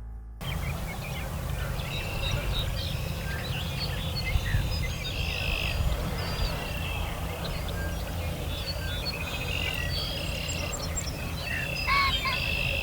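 A chorus of several songbirds singing and calling over one another, with many short chirps, whistles and trills, over a steady low rumble of outdoor background noise.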